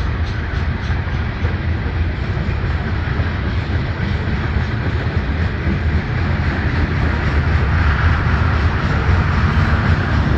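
Freight train's covered hopper cars rolling past close by: a steady rumble of steel wheels on the rails that grows a little louder about halfway through.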